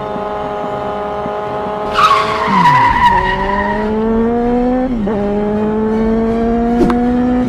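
Motorcycle engine sound effect accelerating through the gears, its pitch climbing and dropping back at two gear changes. A tyre screech comes in about two seconds in and lasts a couple of seconds.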